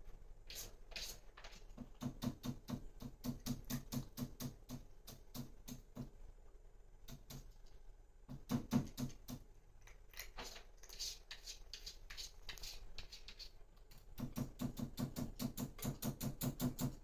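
Cat digging and scratching in litter in a litter box: quick runs of scraping strokes, about four a second, broken by pauses and looser bursts of scraping.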